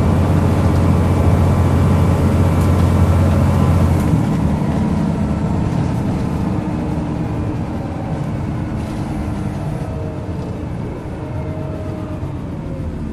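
Volvo B10B bus engine heard from inside the saloon, pulling with a loud low drone; about four seconds in the engine note drops away abruptly and the bus runs on with a quieter rumble of road and drivetrain noise that fades gradually.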